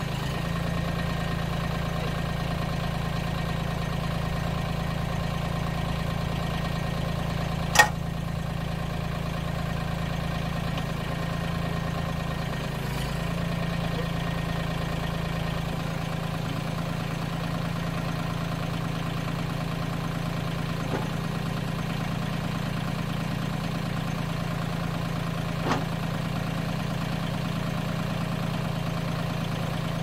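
Mahindra 1626 compact tractor's diesel engine idling steadily while the backhoe's hydraulic controls are worked. There is one sharp knock about eight seconds in, and a fainter one near the end. The lowest part of the engine note drops away partway through.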